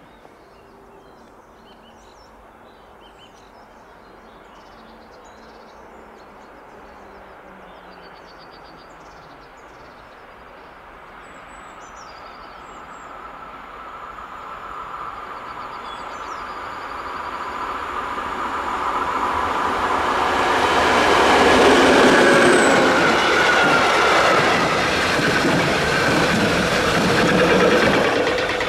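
A train approaching and passing, growing steadily from faint to loud, loudest about 22 s in and still loud near the end.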